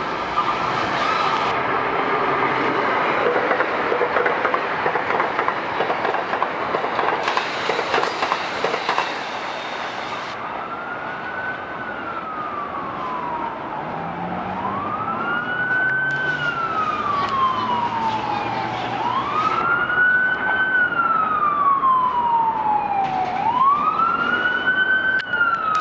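Metro-North commuter train running through the station at speed without stopping: loud steady rumble and clatter of wheels on rails for about ten seconds, then fading. From about eleven seconds in, an emergency-vehicle siren wails, its pitch slowly rising and falling about once every four seconds.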